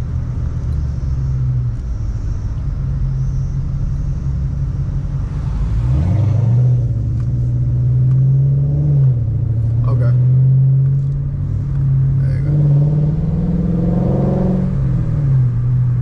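Chrysler 300's engine and exhaust heard from inside the cabin while driving. The engine note climbs as the car accelerates about six seconds in, drops back at a gear change, then climbs and drops once more near the end.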